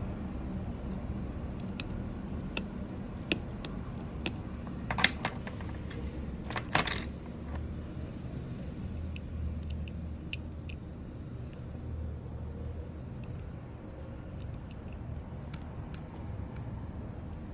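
Scattered light metallic clicks and clinks, loudest in a cluster about five to seven seconds in, over a steady low hum.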